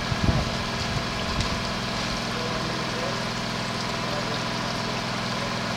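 Stone-cutting machinery running steadily: an electric motor's hum over a constant hiss, with a few knocks in the first second and a half.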